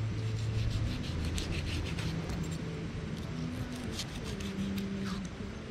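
Large kitchen knife scraping the scales off a fish on a wet log: quick, irregular rasping strokes of the blade against the scales.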